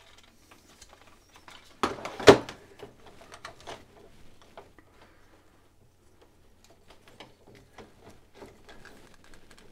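Hard plastic parts of an oversized Starscream knockoff transforming figure clicking, clacking and rattling as they are folded and pushed into place by hand, with two sharp clacks about two seconds in the loudest.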